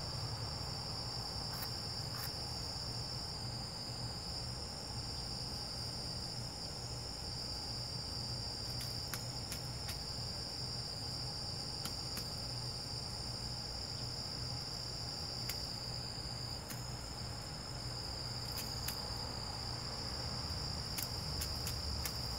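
Crickets chirring in a steady high-pitched drone, with a few faint sharp clicks here and there.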